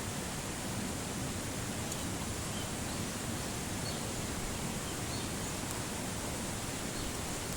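Wood campfire burning: a steady hiss with a few faint, sharp crackles.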